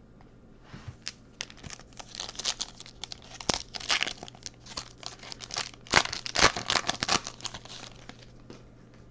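Metallic foil wrapper of a trading-card pack being torn open by hand and crinkled, a dense crackling that is sharpest about six seconds in.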